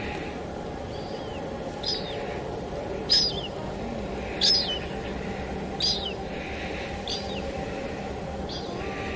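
A bird repeating a short, high, downward-slurred call about every second and a half, over a steady hiss of falling rain.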